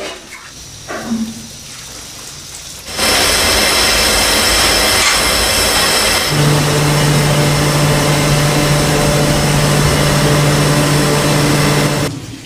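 Large multi-jet gas cooking burner burning at full flame: a loud, steady rushing noise that starts abruptly about three seconds in and stops near the end, with a low steady hum joining about halfway through.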